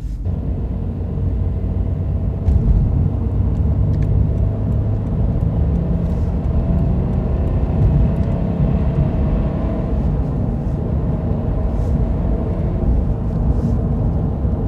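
Toyota 86's 2.0-litre flat-four engine and tyre rumble heard inside the cabin as the car pulls onto the expressway, the engine note rising through the middle.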